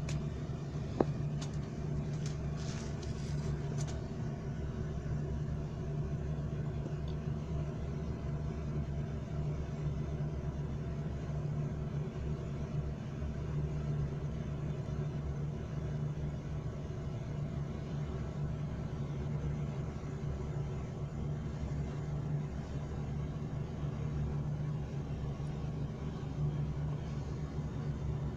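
A steady low mechanical hum at one constant pitch, with a single sharp click about a second in.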